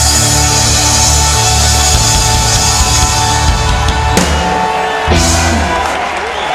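Live reggae band, with electric guitars, bass, drum kit and congas, holding a sustained chord over a steady bass. The band then strikes two sharp closing hits about four and five seconds in as the song ends.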